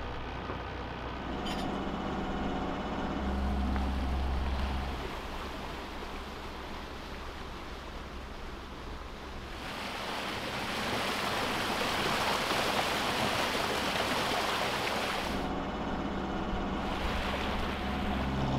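Bow wave rushing and splashing along a sailboat's hull under a low, steady engine drone. The water noise swells loudest for several seconds in the middle, then eases.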